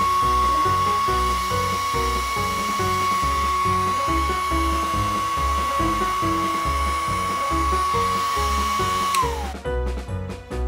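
Small portable electric air pump's brushed motor running with a steady high whine, then winding down in pitch and stopping about nine seconds in as it is switched off. Background music with a steady beat plays throughout.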